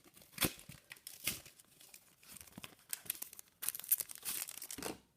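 Foil Pokémon booster pack wrapper crinkling and being torn open in sharp crackles and rips, with a longer stretch of crinkling near the end.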